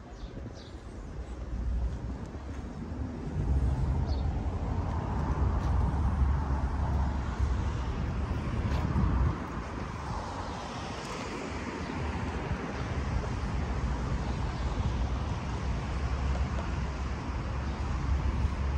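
Street traffic passing, with the sound of a vehicle swelling and easing off near the middle, over a steady low rumble of wind on the microphone.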